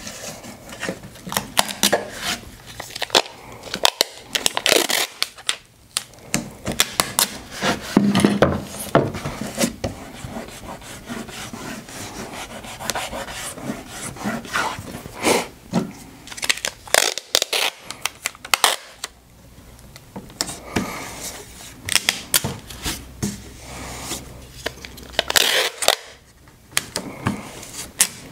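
Clear tape being pulled off a handheld Scotch dispenser, cut on its teeth and pressed and rubbed down onto a pallet-wood board, in many short, irregular strokes.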